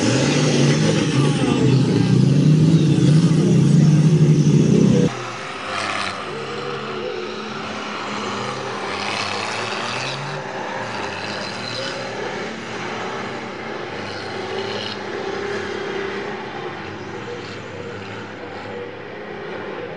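Cummins diesel engines of mud-racing mega trucks revving hard under load, their pitch rising and falling. Loud and close for about the first five seconds, then suddenly quieter and more distant.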